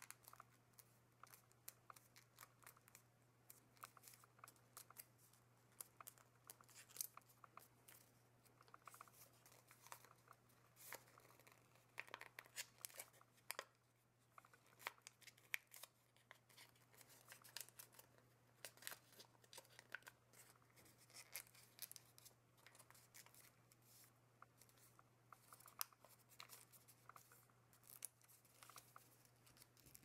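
Origami paper crinkling and rustling faintly in the hands as it is folded and creased, in many short crackles, over a faint steady low hum.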